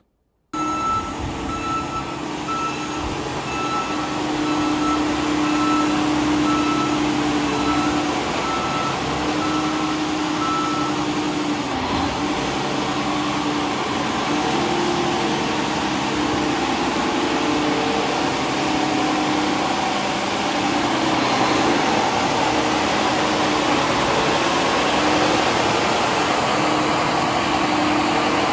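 Case IH Quadtrac 620 tracked tractor running, its 16-litre six-cylinder diesel engine working as the machine moves across the yard. A regular beeping sounds over it for about the first ten seconds.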